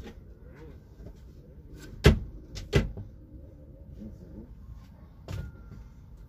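Gear being loaded into a van: two loud knocks about two-thirds of a second apart, then a lighter knock near the end, over faint handling noise.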